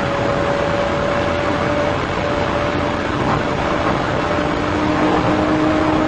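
Police cruiser travelling at about 124 mph: steady, loud road and wind noise with engine drone, heard from the dashcam inside the car, with a steady whine over it.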